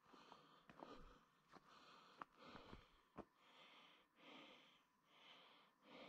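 Faint sounds of a person walking a forest track: a few sharp clicks in the first half, then soft rustling swells a little under a second apart.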